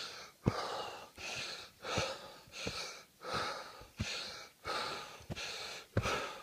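A person breathing hard and fast from the effort of a steep uphill climb, about three heavy breaths every two seconds, with dull footfall thuds in between.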